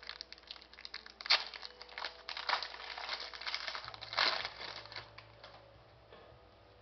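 Wrapper of a Fleer Ultra hockey card pack being torn open and crinkled by hand: a run of irregular crackles, sharpest about a second in and again about four seconds in, that dies away after about five seconds.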